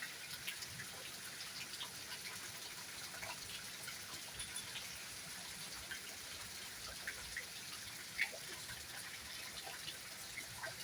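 Steady rain falling, soft, with many scattered individual drops ticking close by.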